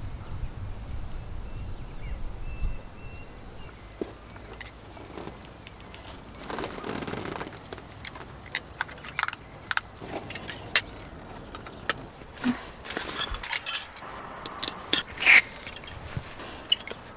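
Camping gear being handled: scattered sharp metallic clicks and knocks with short bursts of rustling. Near the end, the folding pot supports of a SOTO ST-310 gas stove are clicked open beside a butane canister. A low rumble fills the first few seconds.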